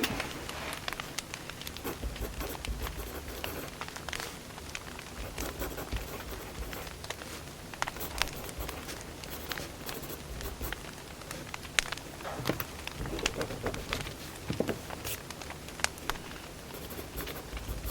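Firewood burning, a steady low rush of flame with irregular sharp crackles and pops, a few louder snaps about two-thirds of the way through.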